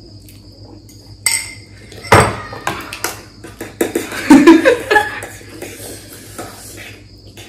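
Metal forks clinking and scraping against plates during eating, a run of sharp clatters from about a second in to about five seconds, loudest around two seconds and again around four.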